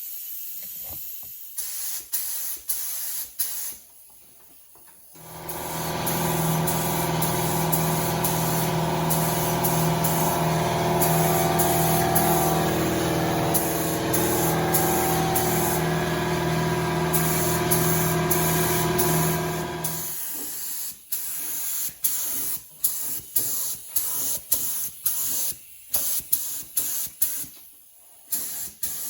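Spray gun hissing in short bursts as paint is sprayed onto the engine bay, one burst after another near the start and about one every half-second to second in the last nine seconds. For a long stretch in the middle a steady motor hum runs under a continuous hiss, then stops about twenty seconds in.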